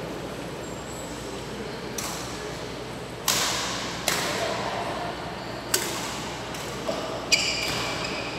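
Badminton rackets smacking a shuttlecock in a rally: about six sharp hits at irregular intervals, each ringing out in the large hall.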